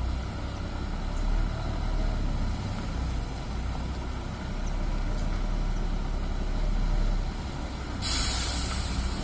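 Large coach bus's diesel engine running low and steady as the bus manoeuvres, then a sudden loud air-brake hiss about eight seconds in.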